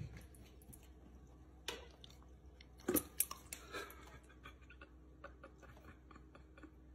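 A dog's faint mouth sounds at a bowl of sparkling water: small irregular clicks and smacks, with a few louder ones about three seconds in.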